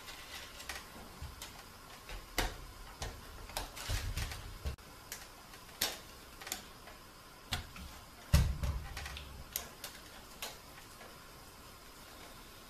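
Irregular clicks and taps of 14-gauge THHN copper wire being wound around a steel beam by hand, with dull thuds around four seconds in and a louder one about eight seconds in.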